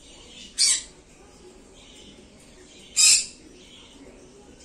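Pineapple green-cheeked conure giving two short, loud calls about two and a half seconds apart, the second slightly louder.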